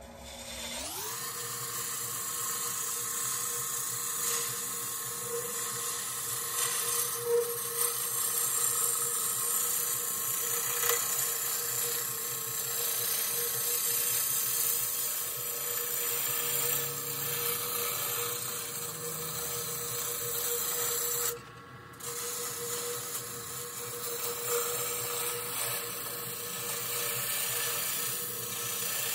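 A Laguna Revo wood lathe spinning up with a rising whine, then a gouge cutting dry tea tree wood as the branch is roughed round: a steady high whine with the hiss and scrape of the tool on the wood. The cutting breaks off briefly about two-thirds of the way through.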